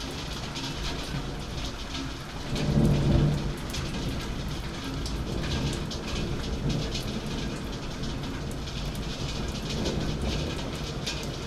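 Steady rain with drops ticking close by, and a low rumble of thunder that swells up about two and a half seconds in and is loudest for about a second before dying back into a lower rumble under the rain.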